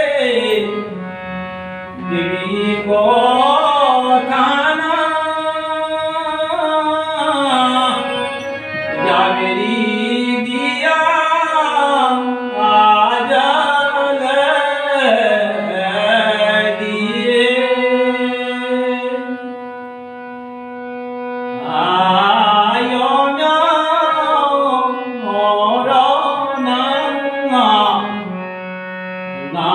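A man sings a Kumaoni nyoli solo, in long, slowly wavering held notes. He breaks briefly about twenty seconds in and again near the end.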